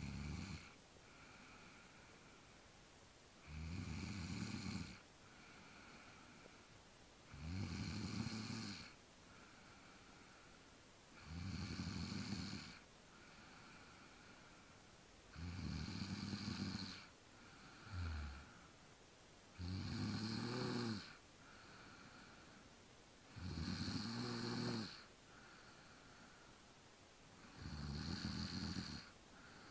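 Sleeper snoring in a regular rhythm: a loud, low snore about every four seconds, each lasting a second or so, with a quieter breath between them.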